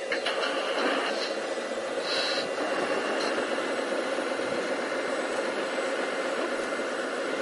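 Radio-controlled scale-model excavator working, its motors running with a steady hum and whine. A brief higher squeal about two seconds in.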